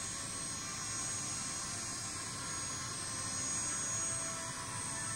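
Jet noise from a formation of six Kawasaki T-4 jets flying past, a steady sound that swells slightly about three to four seconds in.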